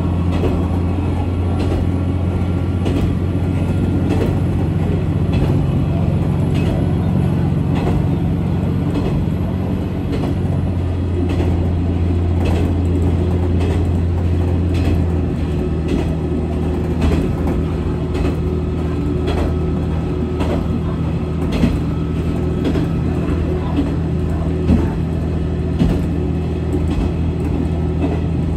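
Diesel railcar running: a steady low engine drone that changes note about ten seconds in and again about fifteen seconds in, with frequent light clicks and knocks from the running gear.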